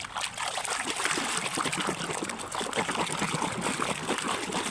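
Water running and splashing steadily while a muddy toy is washed.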